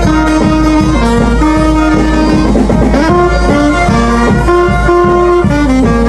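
Filipino brass band (banda) playing dance music, a saxophone carrying the melody up close in held notes over a steady low beat.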